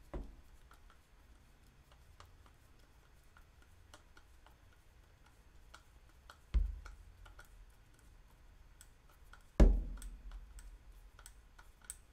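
Hand screwdriver driving a machine screw into a 3D-printed plastic grip: a string of small clicks. Three dull thumps come at the start, about six and a half seconds in, and near ten seconds in, the last the loudest.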